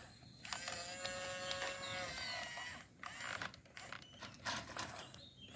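Small electric motor of an RC construction machine whining steadily for about two seconds, then stopping, followed by irregular clicks and scraping.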